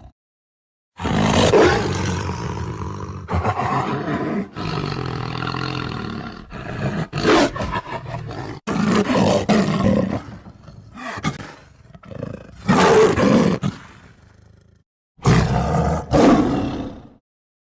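A tiger roaring over and over: a run of separate roars, each a few seconds long, broken by abrupt silences, with two shorter roars near the end.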